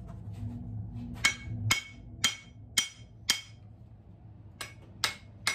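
Hammer blows on an old axe to knock its head off the handle, each with a short metallic ring. Five strikes come at about two a second, then a pause, then three more near the end.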